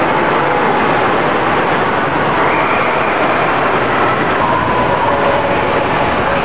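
Steady, loud din of an indoor swimming pool hall, even and unbroken, with faint wavering sounds buried in the noise.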